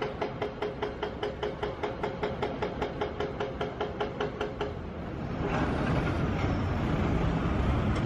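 City street and construction-site noise. A rhythmic mechanical clicking, about four times a second over a steady hum, runs through the first half, then gives way to a louder, steady traffic rumble.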